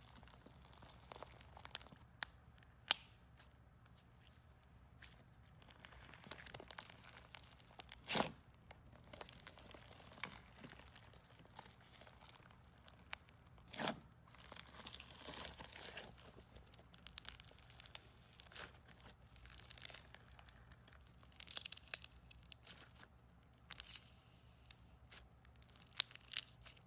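Jelly cube slime being squeezed and stretched by hand, crackling and crunching irregularly. Two loud sharp snaps stand out, about eight and fourteen seconds in.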